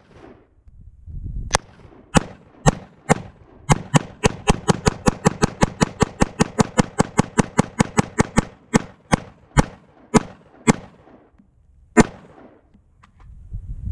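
AR-15-style .223 rifle fitted with an aluminum muzzle brake firing a long string of shots. A few spaced shots open, then a fast even string of about four to five shots a second, slowing near the end, with one last shot after a short pause.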